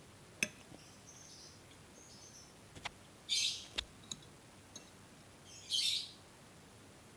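Close-up eating sounds during a fried-noodle and fried-egg meal: five or six sharp clicks of a utensil, and twice a short hissing slurp, about three and a half and six seconds in.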